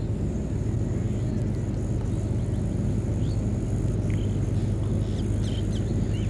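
A steady low rumble, with a few short high bird chirps about four to six seconds in.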